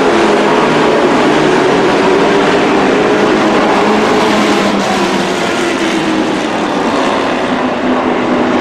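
A field of dirt-track race trucks running at speed around the oval: several engines overlap in a loud, steady blare, their pitches drifting up and down as the trucks go through the turns.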